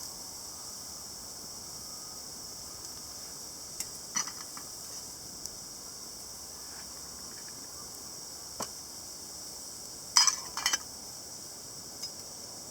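Steady high-pitched insect chorus, with a few sharp clicks and clinks over it, the loudest a short cluster about ten seconds in.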